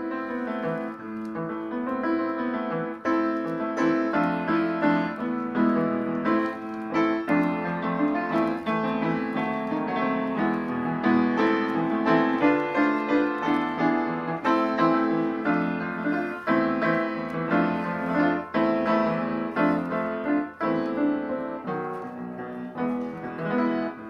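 Upright piano played, a piece of steadily flowing notes.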